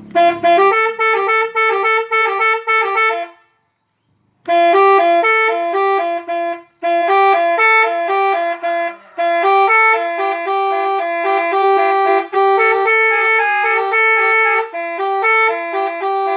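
An 18-tone telolet horn playing quick tunes, one short horn note after another in a stepped melody. It stops for about a second some three and a half seconds in, then starts a new tune.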